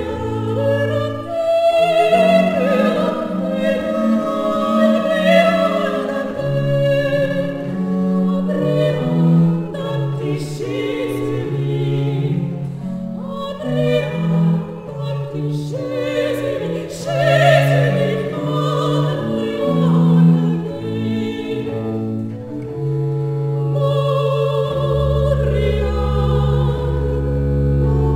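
French baroque petit motet performed live: several high women's voices singing together in counterpoint, with vibrato, over a basso continuo of viola da gamba, theorbo and positive organ. Near the end the bass settles into a long held low chord.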